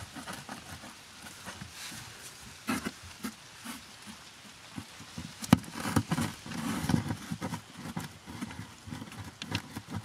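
A cardboard box being poked and scraped with a pointed blade, with irregular taps, scrapes and rustles of cardboard and one sharp knock about five and a half seconds in.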